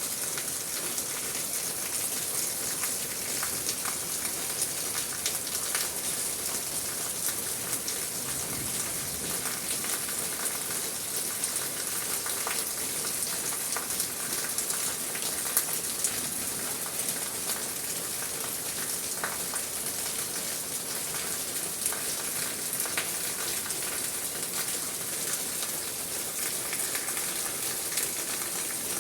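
Steady rain falling, a dense patter of drops with the odd louder single drop.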